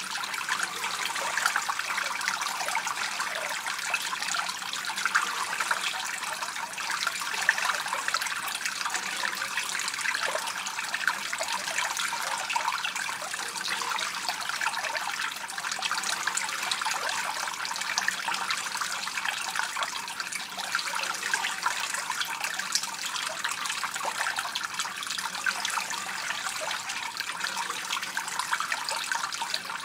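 A narrow stream of water pouring and splashing onto a wet surface: a steady trickling splash with a constant fine crackle and no pauses.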